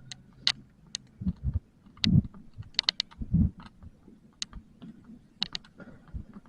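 Irregular sharp clicks, about fifteen in all, scattered among a few soft low thumps.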